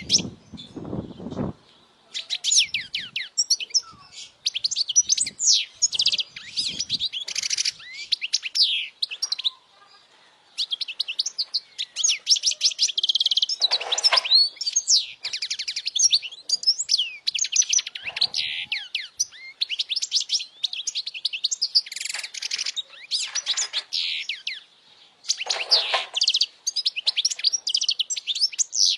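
European goldfinch singing: long runs of rapid, high twittering chirps and trills, broken by short pauses near the start and about ten seconds in.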